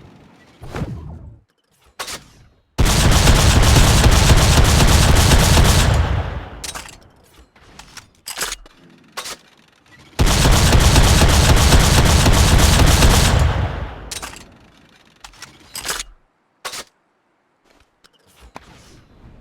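Drum-fed shotgun firing two long bursts of rapid automatic fire, each about three seconds, with scattered clicks and knocks between and after them.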